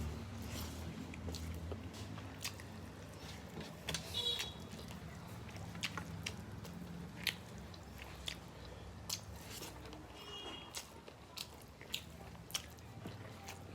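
Eating sounds: irregular chewing with scattered sharp mouth clicks and smacks, a few a second at most, over a steady low hum.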